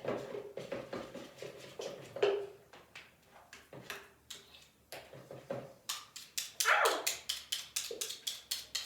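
A spoon stirring a thick, sticky slime mixture in a bowl: a run of taps and scrapes that speeds up to about five quick clicks a second near the end, with a few short squeaks, one sliding down in pitch.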